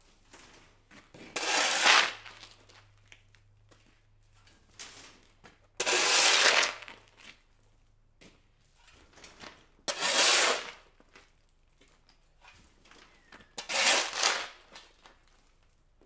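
Shovel scooping dirt off concrete: four loud scrapes of the blade across the slab into the dirt pile, each about a second long and about four seconds apart, with small knocks and rustles of dirt between.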